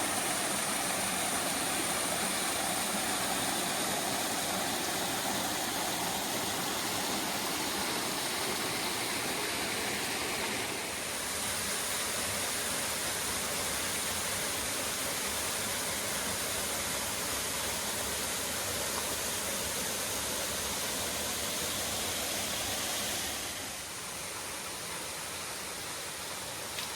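Rushing water of the Rose River and its cascades, a steady hiss. It shifts in level slightly twice, near the middle and again near the end.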